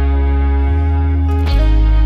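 Slow instrumental worship music from a band: held keyboard and guitar chords over a deep bass line, with the chord changing about three-quarters of the way through.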